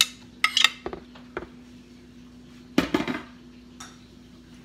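Dishes clinking as pickled snow fungus and onion slices are scraped off a ceramic plate into a plastic mixing bowl. A few sharp clinks come in the first second and a half, then a louder clatter about three seconds in, over a steady low hum.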